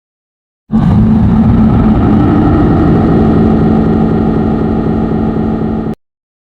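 A loud engine sound effect: a steady, dense rumble with a held low tone, starting abruptly under a second in and cut off suddenly near the end.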